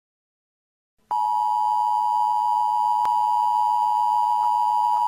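Emergency Alert System–style attention tone: after about a second of silence, one loud, steady electronic tone starts and holds without change.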